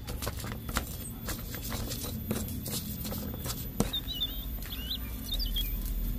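Cut pieces of raw long bean dropped by hand into a stone mortar, landing as a patter of many small light clicks. A small bird chirps a few times in the second half.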